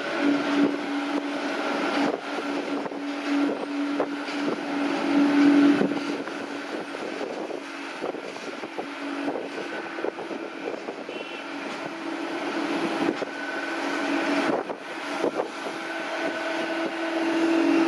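Jet airliners idling and taxiing on an airport apron: a steady jet whine over a roar of engine noise, getting louder near the end, with wind buffeting the microphone.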